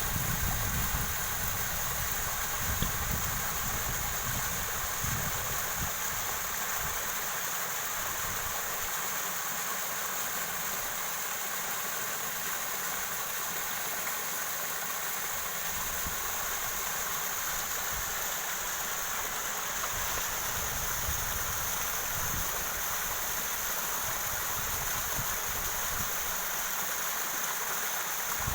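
Running water rushing steadily, as from a stream or small waterfall, with a low rumble coming and going underneath.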